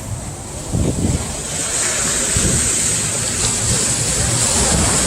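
Ocean surf: a wave breaking and washing in, a broad hiss that swells about a second and a half in and eases off near the end. Wind buffets the microphone throughout.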